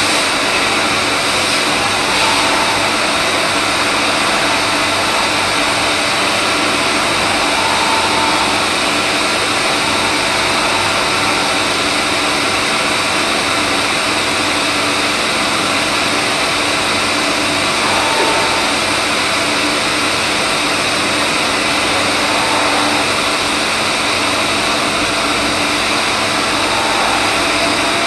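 CNC machine running steadily while machining a shaft: an even, loud machine noise with several steady tones underneath, and a brief higher tone a few times.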